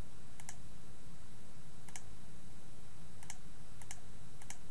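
Computer mouse button clicked five times at uneven intervals, each click a quick double snap of press and release, as polygon points are placed one by one. A steady low hum sits underneath.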